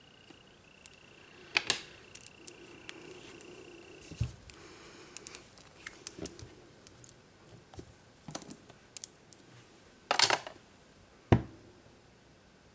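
Small clicks and taps of nail-art tools and a polish bottle being handled on a tabletop, with a few louder knocks, two of them close together near the end. A faint steady high whine runs through the first few seconds, then stops.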